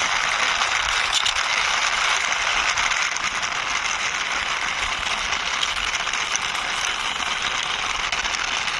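Diecast toy truck pushed along a surface by hand, its wheels rolling with a steady noise and fine, rapid clicking.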